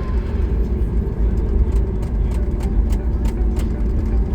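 Cabin noise inside a Boeing 737 MAX 8 on the ground before takeoff: a steady low rumble, with a quick run of light clicks or rattles in the middle.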